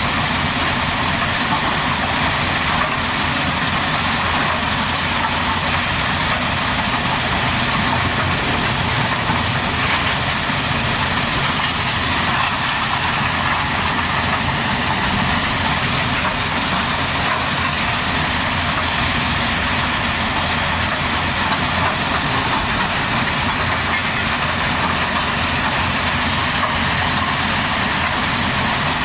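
Heavy construction machine's engine running steadily.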